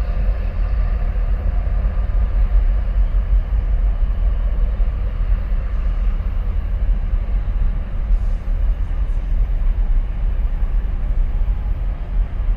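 Loud, steady low rumble of a large container ship and her escorting tug passing close, with a faint even engine hum above it, mixed with wind buffeting the microphone.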